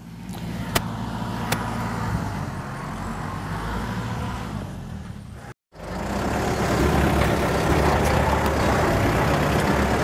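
Compact tractor engine running steadily as the tractor works a three-point potato plow. After a brief cut about halfway through, the engine is louder and close by.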